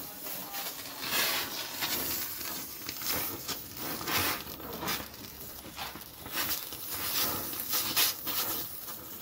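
Gas welding torch flame hissing against sheet steel, with irregular crackles and pops as the metal melts and throws sparks.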